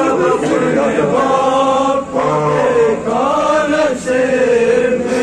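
Men singing a noha, a Shia mourning lament. A lead male voice is amplified through a microphone, and a group of men chants along with him in long, wavering phrases that break briefly now and then.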